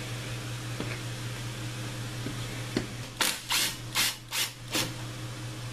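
Makita cordless driver whirring in five short trigger bursts, backing out a bolt on the timing chain tensioner side of an ATV engine case.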